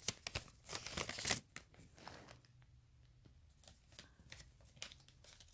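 Handling noise of a phone held close: quick rustles and clicks as a hand brushes and shifts it near its microphone, bunched in the first second and a half, then a few faint scattered clicks.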